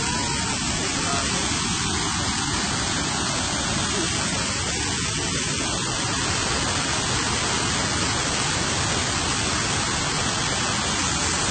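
Waterfall pouring down over rocks: a steady, unbroken rush of water.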